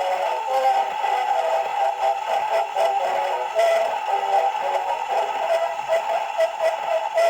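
A march playing from a 1909 disc record. The band's sound is squeezed into a narrow middle range, the way early acoustic recordings are, over a faint hiss and light ticks from the disc's surface.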